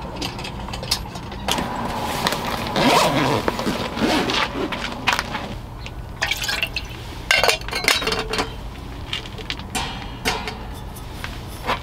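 Water poured into a kettle, rising in pitch as it fills, followed by several metal clinks and knocks of camping cookware being handled and set down.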